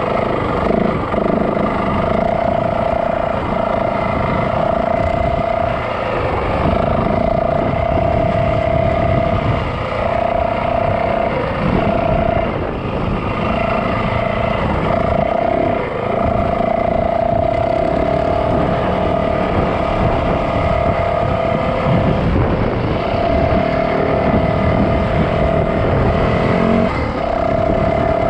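Yamaha dirt bike engine running on a trail ride. Its note holds a steady pitch that drops out briefly several times, over a continuous rough low rumble.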